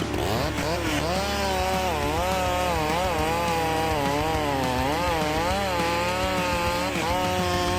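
Gasoline chainsaw engine running at high revs. It revs up sharply right at the start, then its pitch wavers up and down as the throttle and load change.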